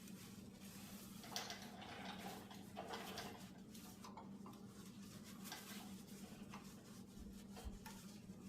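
Faint clicks and light rustling of small metal and plastic parts being handled and fitted, over a steady low hum.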